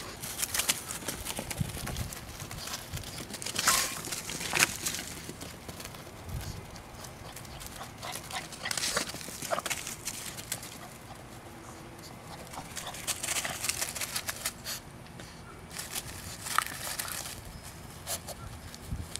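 Puggle puppy and another dog scuffling and running through grass and dry leaves as they play: irregular rustling and scuffing, loudest around four seconds in.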